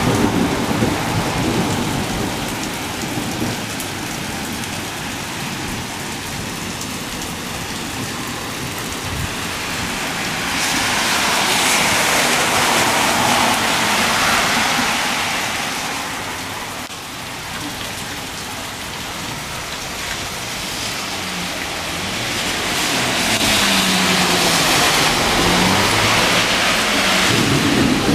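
Heavy rain pouring steadily onto pavement. The hiss of car tyres on the wet street swells up about ten seconds in and again near the end.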